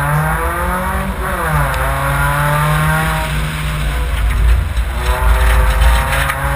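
Subaru Impreza rally car's flat-four engine revving hard on a wet gravel course, its pitch falling sharply about a second and a half in and then climbing again. From about four seconds in a heavy low rumble and clicks of gravel and mud hitting the car grow louder.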